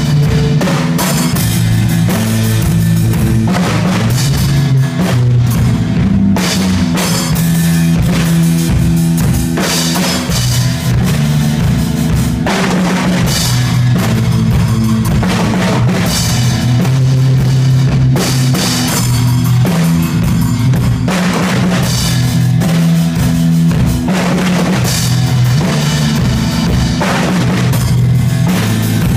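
Rock band playing a song: a Mapex drum kit with bass drum, snare and cymbal crashes, over a changing electric bass line and electric guitar.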